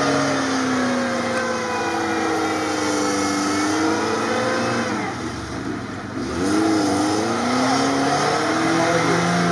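Lada Niva's engine revving hard under load in deep swamp mud, its pitch rising and falling as the wheels spin and dig in. The revs drop off about five seconds in, then climb again.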